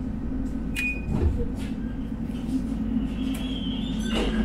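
Tram running along the rails, heard from on board: a steady low rumble with a few sharp knocks and clicks, and a brief high wheel squeal about three seconds in.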